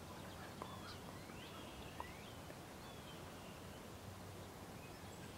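Faint field ambience with distant songbirds calling in short whistled chirps and glides, and a soft tick or two.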